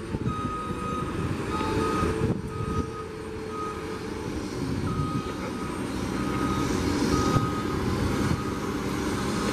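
Aircraft tow tractor's warning beeper sounding in repeated high beeps at an uneven pace, over the low rumble of its engine, as it tows a Boeing 767 freighter.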